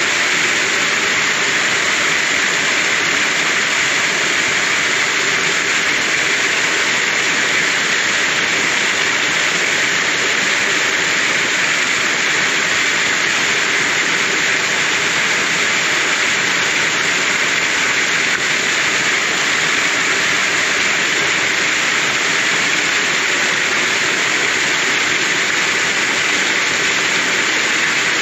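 Small waterfall pouring down a rock face and splashing into a shallow pool: a steady, unbroken rushing hiss of falling water.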